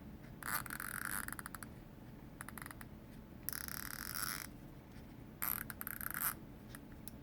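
Homemade fidget-toy noisemaker: a bottle cap spinning on a toothpick spindle, giving short spells of rapid clicking rattle that slow as each spin runs down. There are about four spells, each about a second long.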